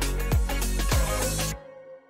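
Music with a steady beat that cuts off about one and a half seconds in, leaving a short fading ring.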